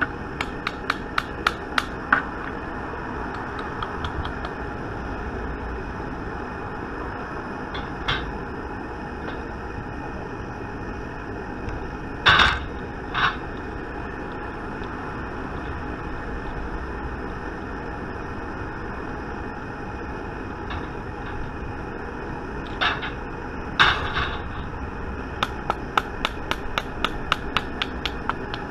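A wooden dowel knocking on a hand-held bullet mould during lead bullet casting: a quick run of light knocks at the start, a few louder single knocks around the middle, and another run of about four knocks a second near the end.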